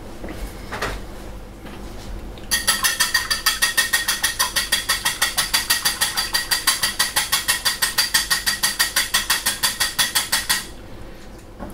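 Egg being beaten with a whisk in a bowl: the whisk clacks against the bowl in a fast, even rhythm of about six strokes a second, starting about two and a half seconds in and stopping shortly before the end.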